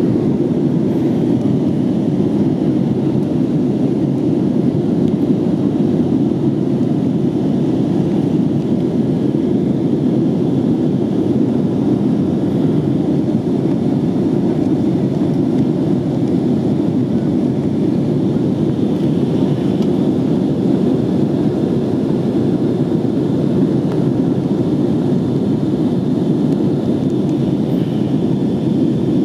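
Steady engine and airflow noise inside the cabin of an Airbus A321 in flight, an even low rushing sound with a faint high whine above it.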